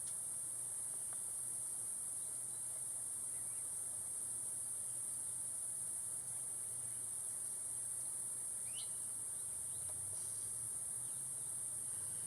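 Steady high-pitched hiss with a faint low hum beneath it, and a couple of faint short chirps.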